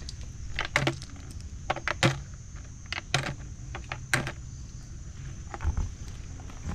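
Hard clicks and taps of mangrove horn snail shells being picked off a tree trunk and dropped into a plastic bottle, about ten at irregular intervals.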